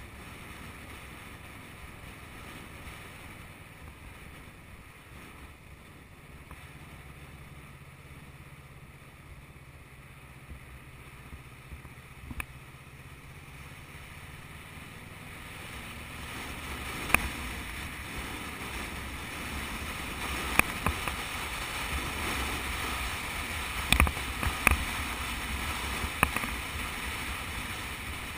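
Motorcycle riding along a road: steady wind and road rush mixed with the engine, growing louder a little past halfway. Several sharp knocks come near the end.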